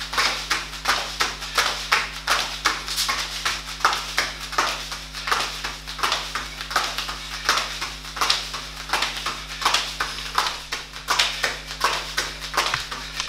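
Bare feet slapping on a padded training mat in a quick, even rhythm of about three or four short slaps a second, as a fighter works through knee lifts and kicks at workout pace.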